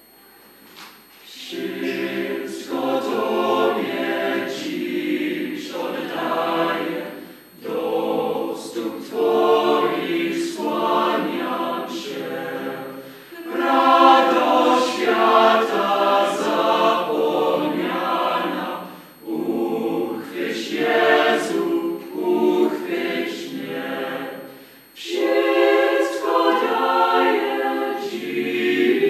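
Mixed choir of men's and women's voices singing unaccompanied, in phrases of a few seconds with short breaks between them; the singing begins about a second and a half in.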